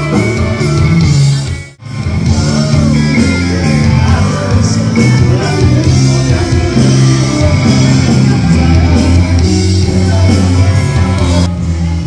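Background music with a singing voice, cutting out for a moment about two seconds in.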